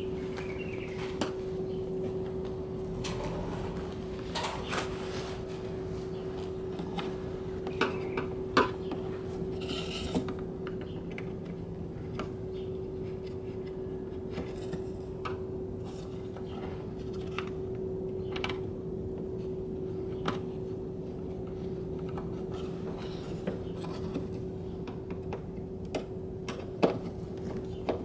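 Scattered clicks, light knocks and scraping of screws being driven by hand and a plastic fuel filler door being handled as it is fastened in place, a few knocks louder about eight seconds in and near the end. A steady low hum runs underneath.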